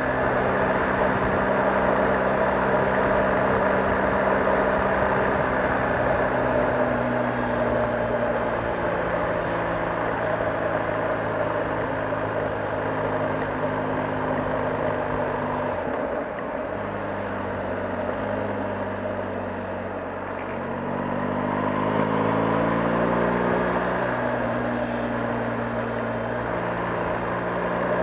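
BMW R 1250 GS's 1254 cc boxer-twin engine and exhaust running at changing revs: a steady note that eases off about sixteen seconds in, then climbs again around twenty-one seconds before settling.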